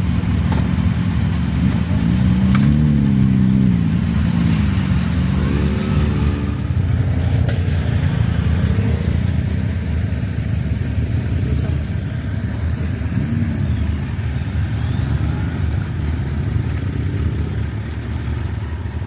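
Kawasaki Versys motorcycle engine running on the move, with a steady rush of wind and road noise. Its pitch rises and falls several times with the throttle, most clearly a few seconds in and again about two-thirds of the way through.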